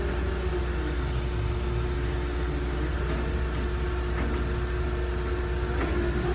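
A heavy engine running steadily at a constant speed, with a held hum and no revving.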